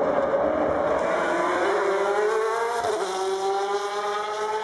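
Race car engine accelerating away out of a slow corner. After about a second the pitch climbs steadily, drops sharply at an upshift about three seconds in, then climbs again, with another shift at the end.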